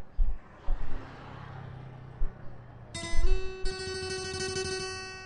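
Low thumps over a faint hiss, then background music with guitar starts about three seconds in.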